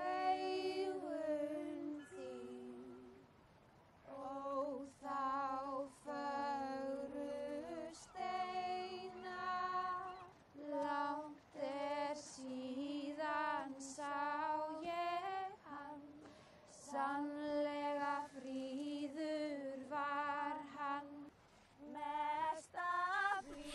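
Women singing a slow Icelandic folk song together, unaccompanied. Long held notes waver in pitch, with brief pauses between phrases.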